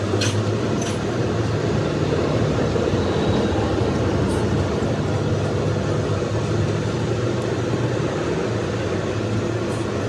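A machine running steadily with a low hum, with a few brief sharp clicks in the first half.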